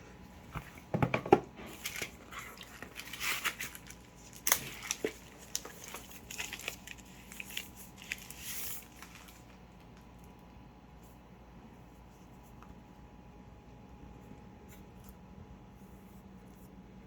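Packaging being handled and torn open: irregular rustling and tearing with a few sharp knocks through the first half, then only faint scattered clicks.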